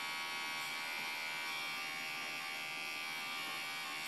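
Electric hair clippers running with a steady buzz, guard removed, the bare blade held against the side of the neck to edge a neckline.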